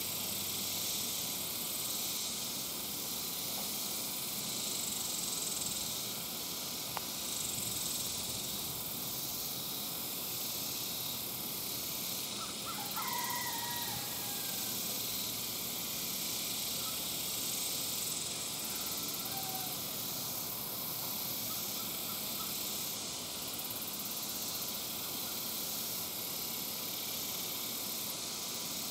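Steady high-pitched hiss of an insect chorus that swells and fades a little every few seconds. A faint, short bird call comes about halfway through.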